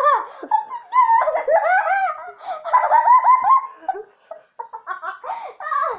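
High-pitched laughter in long, rising-and-falling peals, breaking into shorter bursts about two-thirds of the way through, as a player has just been hit in the face by the Pie Face game.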